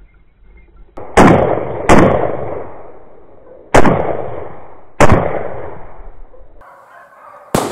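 A hunting gun fired five times. Four shots come over about four seconds, and a fifth near the end. Each shot is followed by a long echo that dies away.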